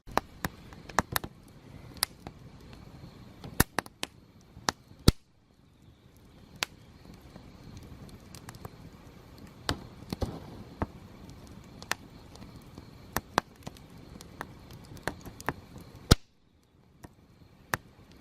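Wood fire crackling: irregular sharp snaps and pops of burning firewood over a low hiss, with the loudest pops about five seconds in and again late on.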